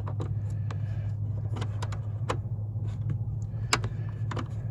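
Scattered, irregular metallic clicks of a small wrench working a tight bolt on the main relay under a car's dashboard, over a steady low hum.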